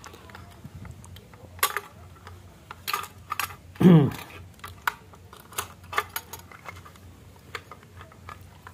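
Charger circuit board and plastic housing being handled: scattered light clicks and knocks as parts are turned over and set down. About four seconds in comes one brief, louder sound that falls in pitch.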